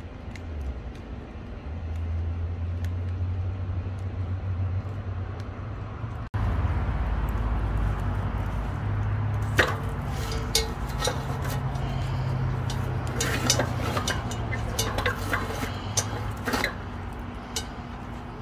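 Campfire in a steel fire pit over a steady low rumble. After a cut, with a cast iron Dutch oven heating on the glowing coals, sharp crackles and pops come thick and irregular for several seconds, then thin out near the end.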